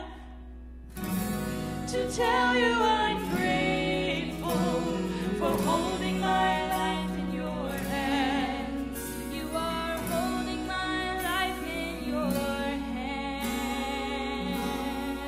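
Two women singing a worship song into microphones. The singing breaks off at the start and resumes about a second in.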